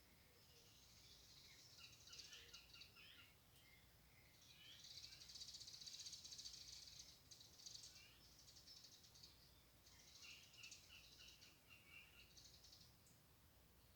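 Eurasian nuthatch nestlings begging in the nest: faint stretches of buzzy, hissing calls three times, with short high chirps among them.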